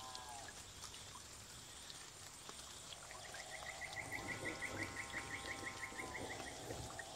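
Forest ambience: long held whistled calls that dip in pitch as they end, one ending just after the start and another from about three seconds in. Over the middle runs a rapid series of short chirps, about five a second, all over a steady high insect hiss.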